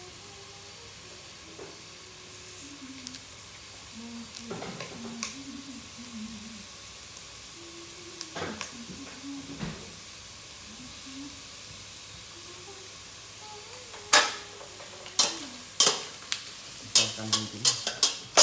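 A metal ladle stirring food in a metal cooking pot, knocking against the pot in a quick run of sharp clanks over the last few seconds.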